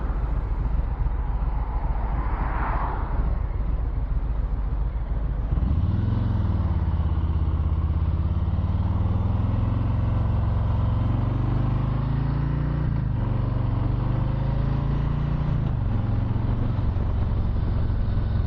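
Harley-Davidson Low Rider S V-twin engine running at low revs for about five seconds, then pulling away with its pitch rising sharply, shifting up a few times and settling into a steady cruise, heard through a helmet microphone.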